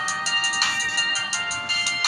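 Polyphonic ringtone from an NTT DoCoMo D505i phone: a synthesized melody of several held tones over a light electronic beat, with a louder snare-like hit about two-thirds of a second in.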